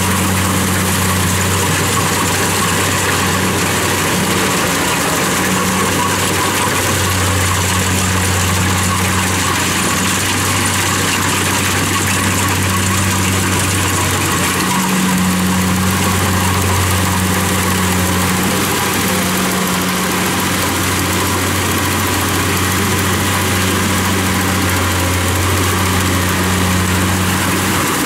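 Kubota rice combine harvester running steadily as it cuts and threshes rice: a constant low engine drone under an even mechanical hiss.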